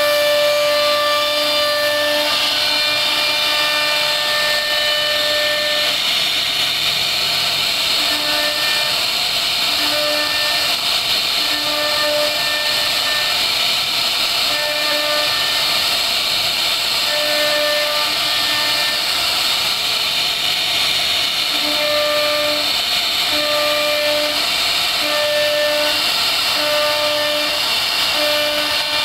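CNC router spindle cutting into a wooden board, a steady high-pitched hiss. A pitched hum cuts in and out every second or two over it.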